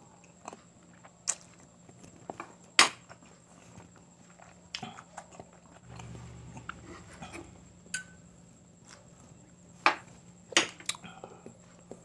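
Close-miked chewing of a mouthful of quail balut, with wet mouth smacks and a handful of sharp clicks spread a few seconds apart, the loudest about three seconds in.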